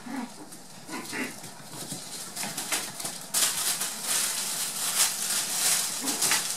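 A black toy poodle puppy chewing and tugging at a plush toy rat. It gives a few small low growls in the first second or so, then there is a stretch of scratchy rustling and clicking as it worries the toy.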